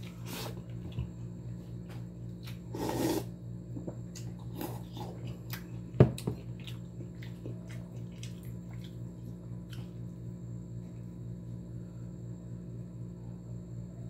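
Close-up eating sounds of a person eating fish by hand: small mouth and finger clicks, a short noisy rustle about three seconds in and one sharp click about six seconds in, the loudest sound, over a steady low hum.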